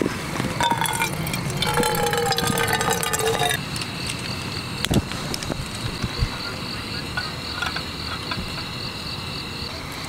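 Water poured into a small metal camping pot, its pitch rising as the pot fills, stopping about three and a half seconds in. A single sharp click follows about five seconds in, over a steady high chirping of crickets.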